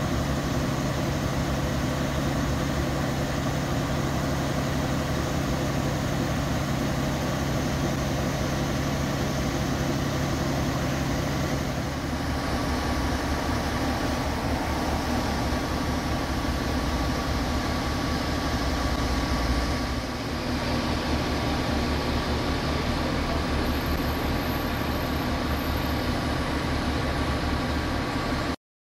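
Fire engines' diesel engines idling steadily, with an abrupt change in the engine note about twelve and again about twenty seconds in.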